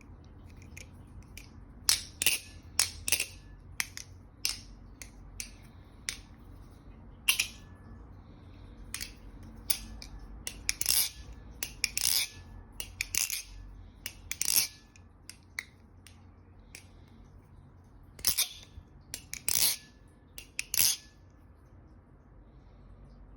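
Squid Industries balisong (butterfly knife) with a V3 blade and V2.5 handles being flipped and tapped: sharp metallic clicks and clacks of handles, blade and pins knocking together, coming irregularly in bunches with quieter gaps.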